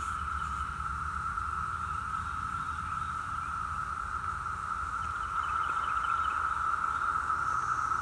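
Chorus of Brood X 17-year periodical cicadas: a steady, unbroken high drone, growing a little louder about halfway through.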